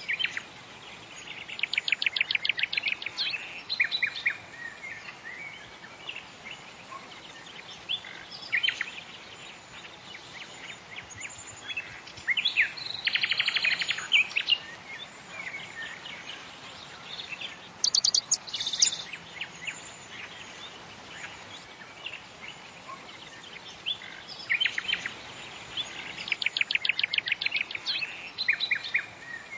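Birds chirping and singing, with a rapid trilled phrase now and then, over a steady background hiss.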